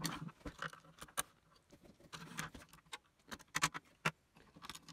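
Irregular light plastic clicks and rattles from a CD player's disc tray and mechanism being handled, the tray slid out and taken off so its drive belt can be removed.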